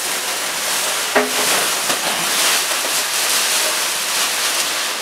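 Thin clear plastic bag rustling and crinkling continuously as it is pulled up off a new freezer cabinet.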